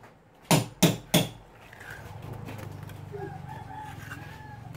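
Three quick, sharp taps of a mason's trowel against fresh mortar and the concrete block wall around a utility box. After them a rooster crows more quietly, a wavering call lasting a couple of seconds.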